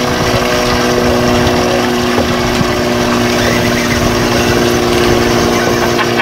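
Boat motor running steadily at low speed, a constant hum of several held tones over a rough rushing noise.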